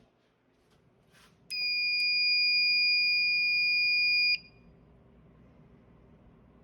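Bosch smoke detector's built-in sounder giving one steady, high-pitched tone for about three seconds, then cutting off sharply. Faint handling rustles come just before it.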